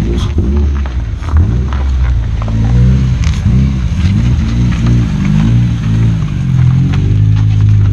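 K24-swapped Honda Civic hatchback's 2.4-litre four-cylinder engine revving hard as the car drives past, its pitch rising and falling several times, with loud exhaust and scattered sharp crackles.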